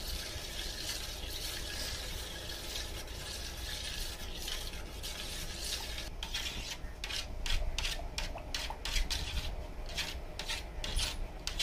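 A spoon stirring runny rabri and scraping around a shallow steel plate. It is a steady wet scraping at first; in the second half it becomes quick, separate scrape strokes.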